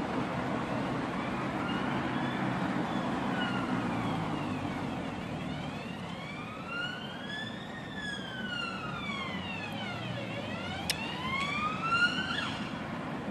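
A siren wailing, its pitch sweeping slowly up and down over a few seconds at a time and growing louder near the end, over a steady low rumble.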